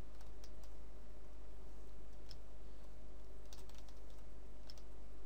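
Scattered faint clicks of a computer keyboard and mouse, a few at irregular intervals, over a steady low electrical hum and hiss.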